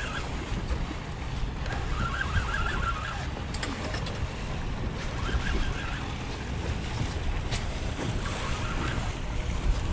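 Steady wind noise on the microphone with water splashing against the hull of a small boat.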